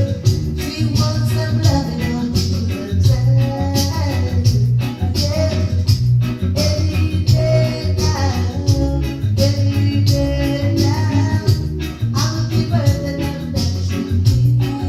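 Reggae music playing, with a heavy, steady bass line under regular drum beats and a melodic part above.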